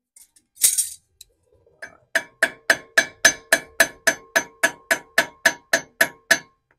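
A hammer strikes the drive flange stud nut of a Lexus LX470 front wheel hub in a quick run of about seventeen blows, roughly four a second, each with a short metallic ring. The blows are knocking the cone washer loose so the drive flange can come off. A short clatter of the tool comes about a second in.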